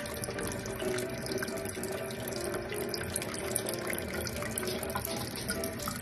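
Kitchen tap running a thin stream that splashes steadily over cupped hands into a stainless steel sink.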